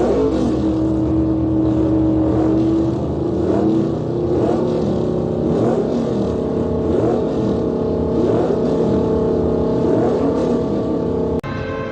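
Car engine running loudly, its pitch rising and falling a little with revs, broken by a brief drop near the end.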